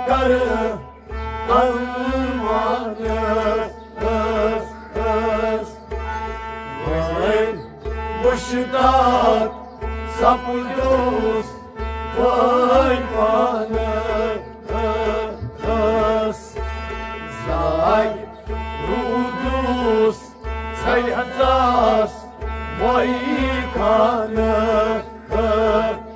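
Kashmiri Sufi devotional song (kalaam): a male voice sings ornamented phrases over a sustained harmonium accompaniment with a rabab, while a low drum-like beat keeps steady time at about two strokes a second.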